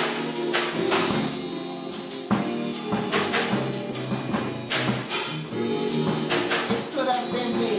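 Drum kit played with sticks: a steady run of cymbal and drum strokes over held low bass notes.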